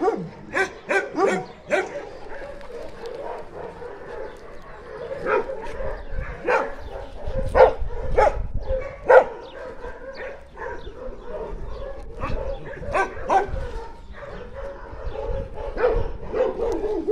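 Dogs barking: a quick run of barks in the first two seconds, then single barks scattered through the rest.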